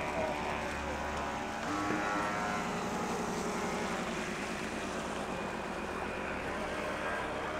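An engine running, its note changing about two seconds in.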